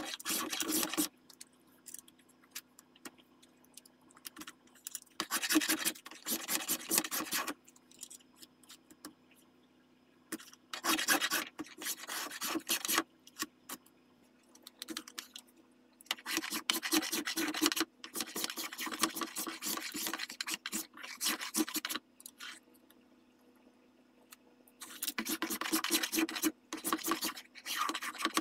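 A hand tool shaving and rasping the walnut of a Krag rifle stock, in runs of rapid strokes separated by pauses. A faint steady hum sits underneath.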